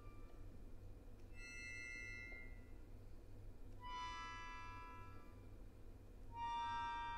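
Solo accordion playing soft, sustained high chords, three in turn, each held for about a second with pauses between; the last, near the end, is the loudest.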